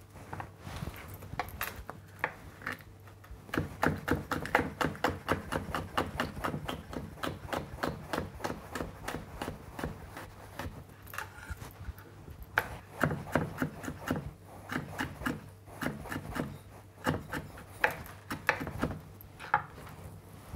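Kitchen knife slicing a red chilli on a wooden chopping board: quick, even knocks of the blade on the wood in two long runs with a short break between, after a few scattered knocks at the start.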